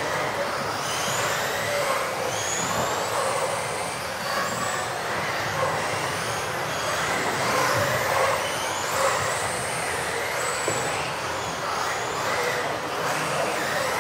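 Several electric off-road RC buggies racing at once, their motors whining in short rising and falling glides as they accelerate and brake, over a steady noise in a large sports hall.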